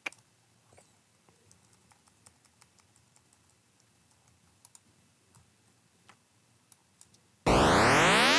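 Faint clicks of a computer keyboard and mouse, then, about a second before the end, a loud synthesized sound effect starts playing back, made of many stacked rising pitch sweeps.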